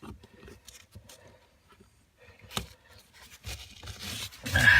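Plastic gas pedal and its mounting being worked into place by hand in a car footwell: faint scraping and rustling, a sharp click about two and a half seconds in, then louder scraping and rubbing near the end.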